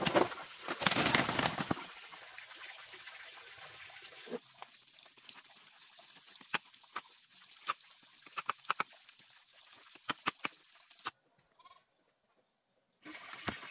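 A loud rustling clatter of bamboo shoots tumbling out of a woven basket onto a concrete floor, then scattered sharp knocks of a machete chopping bamboo shoots on a wooden board. Near the end the sound drops out to silence for about two seconds.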